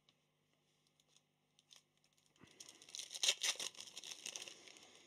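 Foil wrapper of a Panini Prizm trading-card pack being torn open and crinkled, a crackly rustle that starts about halfway through after a few faint clicks.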